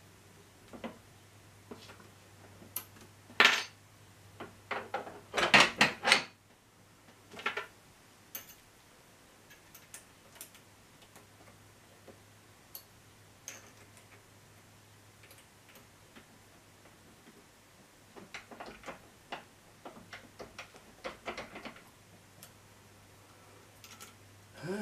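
Steel dies and tools of a vise-mounted bead roller clinking and knocking as they are handled and adjusted. There are a few sharp metallic knocks in the first several seconds, the loudest about three and a half and six seconds in, and a run of lighter clicks near the end.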